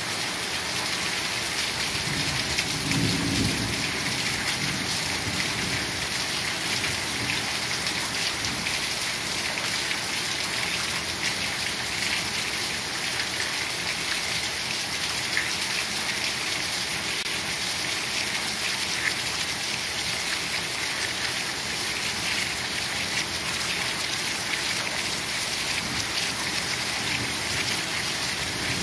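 Heavy rain falling steadily, a dense even hiss, with a low rumble of thunder about three seconds in and a fainter one near the end.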